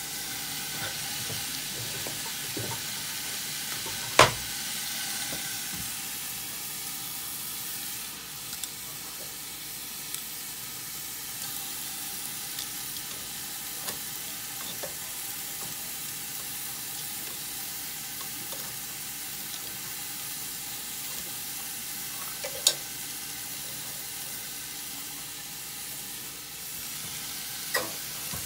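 Vegetable stew sizzling in a pot under a glass lid: a steady hiss. Sharp clicks sound about four seconds in (the loudest) and twice more near the end.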